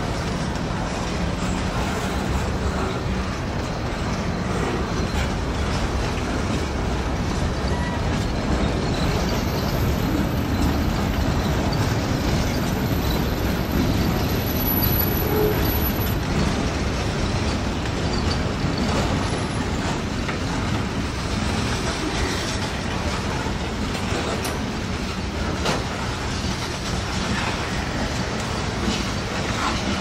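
Freight train's boxcars and gondolas rolling past: a steady rumble of steel wheels on rail.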